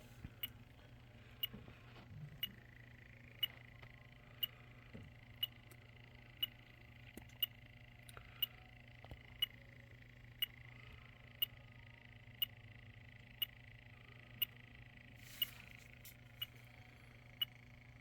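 Electronic refrigerant leak detector ticking faintly and evenly about once a second, its slow search rate with no leak picked up, over a faint steady high tone and a low hum.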